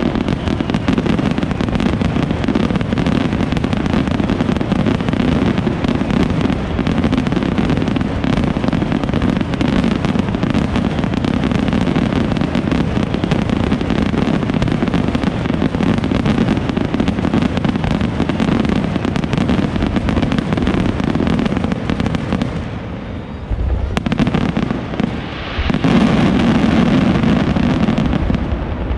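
Large aerial fireworks display in a sustained finale barrage: dense, overlapping shell bursts and crackle, one after another. It eases briefly about three-quarters of the way through, then another loud volley follows.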